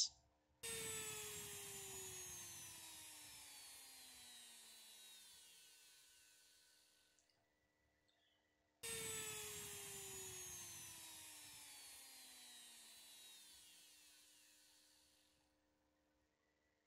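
Handheld Dremel rotary tool spinning down twice: each time a high whine cuts in suddenly, then falls steadily in pitch and fades out over about six seconds, as the motor coasts to a stop.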